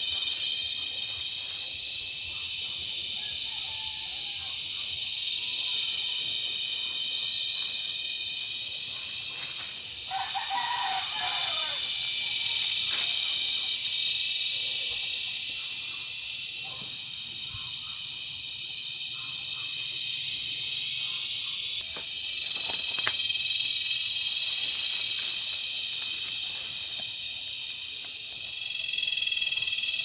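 A chorus of many cicadas buzzing loudly, a continuous high-pitched drone that swells and fades in waves every several seconds. These are the insects' mating calls.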